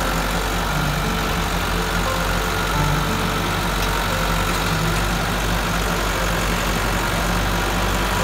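Massey Ferguson 385 tractor's four-cylinder diesel engine running steadily under heavy load, pulling a fully laden trolley of potato sacks hard enough to lift its front wheels off the ground.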